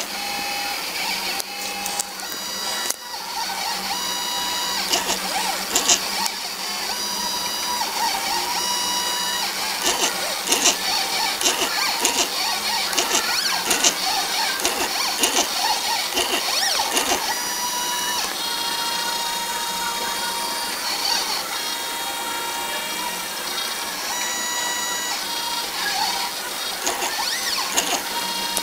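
Stepper motors of an Arduino CNC plotter driving its axes: a whine made of steady notes that jump in pitch as each move changes speed and direction, with many short ticks.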